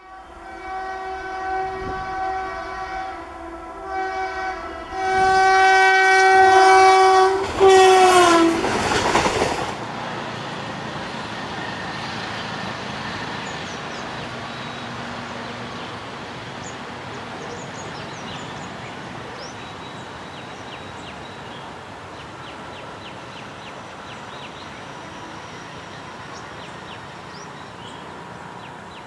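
WAP-1 electric locomotive sounding its horn in several blasts as it approaches, the last long blast dropping in pitch as it passes. The locomotive rushes by loudly, and the running noise of the passenger coaches follows and slowly fades.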